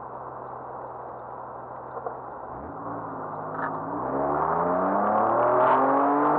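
The 1985 BMW 735i's 3.4-litre straight-six engine, heard from inside the cabin. It runs steadily at low revs, then from about two and a half seconds in the revs climb and it grows louder as the car pulls away and accelerates.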